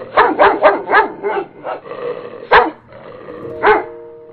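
A dog barking: a quick run of about five sharp barks, then three more spaced out, the loudest about two and a half seconds in.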